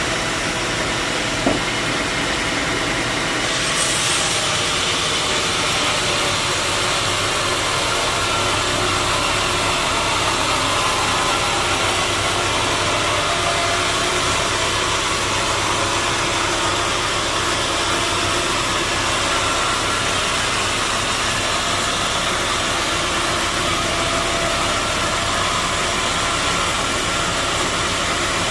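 Sawmill machinery running steadily, a continuous mechanical noise with a faint hum, with a single knock about a second and a half in and a shift in the higher hiss near four seconds.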